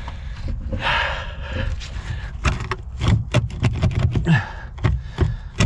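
A plastic prying tool scraping and knocking against a car jack clipped into its trunk well, with a breathy exhale about a second in. From about two and a half seconds in comes a quick run of sharp clicks and knocks as the jack is worked at.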